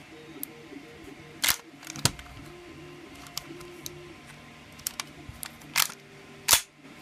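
Sharp clicks and clacks of the moving parts of a Glock 18c gas blowback airsoft pistol in a 3D-printed shell, worked by hand to check that they move freely after assembly. Two loud clicks come about a second and a half in, two more near the end, with smaller ticks between, over background music.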